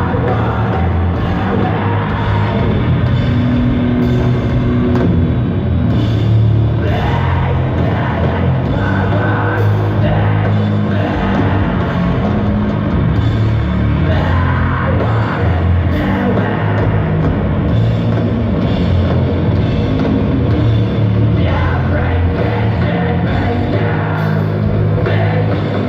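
Doom metal band playing live: loud, heavily distorted guitars and bass with most of the weight in the low notes, continuous and dense.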